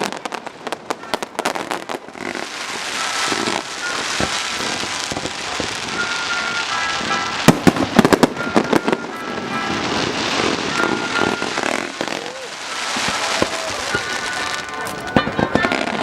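Fireworks going off: a rapid string of sharp bangs and cracks, then a long crackling hiss with short thin whistling tones, broken by more clusters of cracks about halfway through and near the end.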